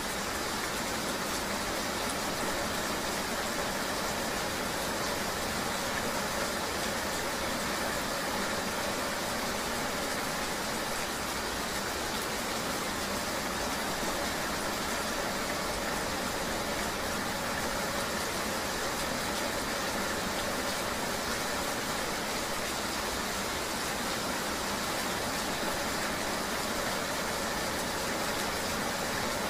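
Steady rain noise mixed with the even running of a vehicle's engine and wet road noise, unchanging throughout.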